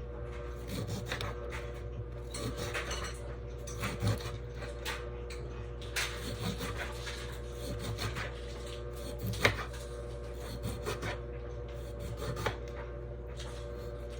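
Knife slicing fresh lemons on a wooden cutting board: irregular scrapes and light knocks, with one sharper knock about nine seconds in. A steady low hum runs underneath.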